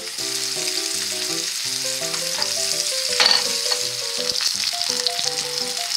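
Black Sea horse mackerel frying in hot oil in a pan: a steady sizzle, with a brief louder crackle about three seconds in.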